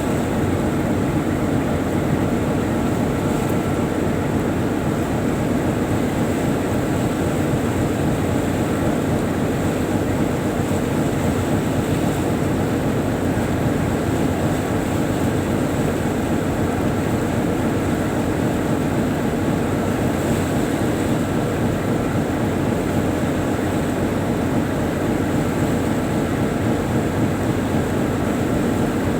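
A tugboat's engine running steadily under way, a constant loud drone heard from on board.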